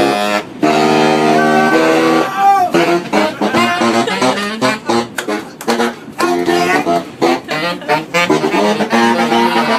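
Saxophone playing: two long held notes at the start, then quick runs of short notes, with a few more held notes near the end.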